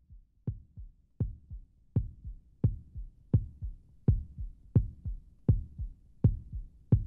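Deep heartbeat-like pulse in an intro soundtrack: a strong low thump about three times every two seconds, each followed by a softer second beat, growing louder over the first two seconds.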